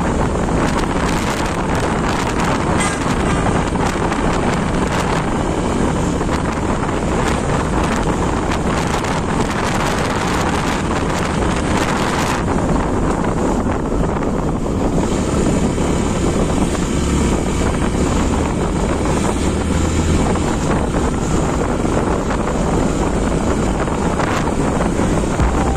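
Steady wind rush on the microphone of a moving motorcycle, with the bike's engine and road noise underneath.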